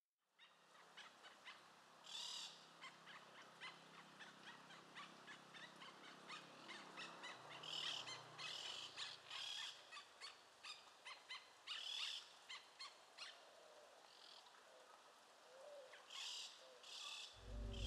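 Faint bird ambience: scattered short chirps and calls, with an owl hooting.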